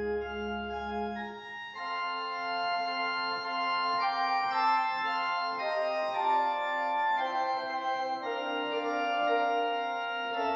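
Organ music: slow, sustained chords that change every second or two. A deep bass note is held at first and drops out about a second and a half in.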